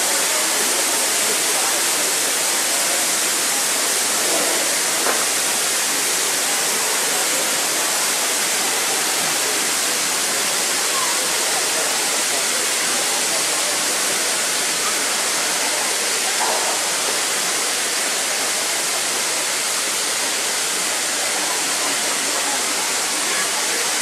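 Black Five steam locomotive 44871 standing and blowing off steam in a steady hiss.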